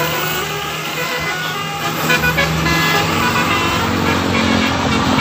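Bus 'telolet' horn, a multi-tone musical horn, playing a tune of short notes that step between different pitches, over a running vehicle engine and road traffic.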